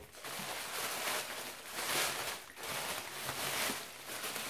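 Tissue paper rustling and crinkling as it is unwrapped by hand, in uneven swells that rise and fall several times.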